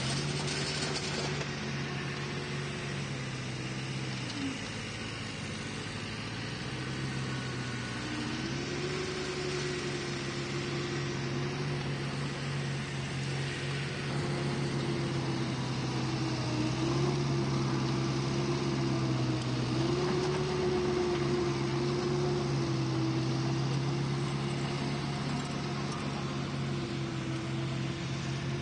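An engine running steadily, its speed dropping about four seconds in, picking up again a few seconds later, then shifting slightly a couple more times.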